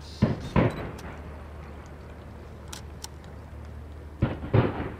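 Fireworks shells exploding: two sharp bangs in quick succession just after the start, and another quick pair near the end, each dying away in a short rumbling echo across the water. A couple of faint high cracks come in between.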